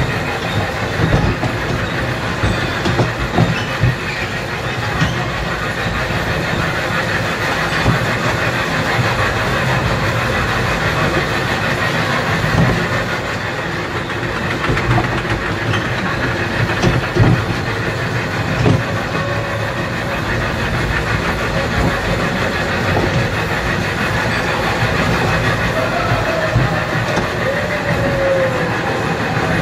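Indoor kiddie train ride running along its track: a steady rumble of the moving carriages with irregular knocks from the wheels on the rails.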